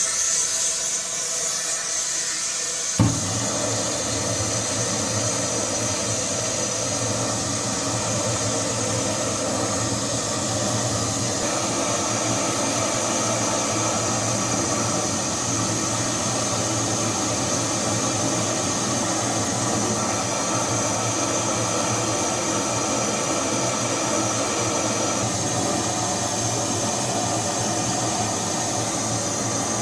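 Handheld propane torch on a one-pound cylinder: gas hissing, then about three seconds in it lights with a sharp pop and burns steadily, its flame lighting charcoal in a smoker's firebox.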